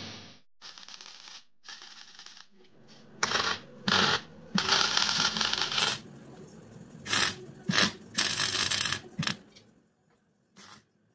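MIG welder tack-welding a steel angle frame and mesh grille: a string of about ten short crackling arc bursts of differing lengths, the longest about a second, with quieter gaps between.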